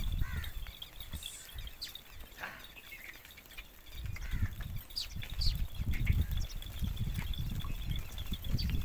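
A herd of goats moving along a dirt track: a low rumble of movement that grows louder about four seconds in, with a few short bird chirps over it.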